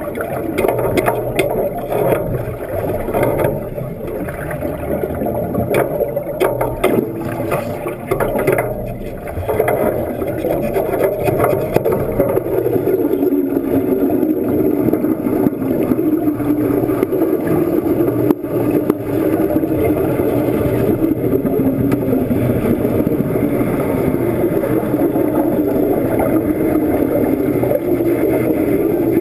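Underwater rumble and bubbling from a diver's helmet exhaust and an underwater wet-welding arc, picked up by a submerged camera. It crackles in the first several seconds, then settles into a steady rumble.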